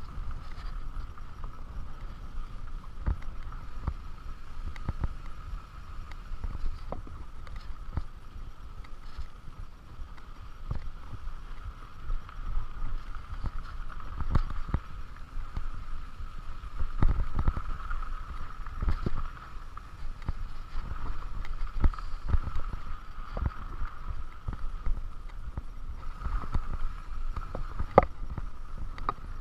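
Mountain bike riding over a rough, rocky dirt trail: the bike rattling and knocking over bumps, with wind rumble on the microphone and a steady high buzz.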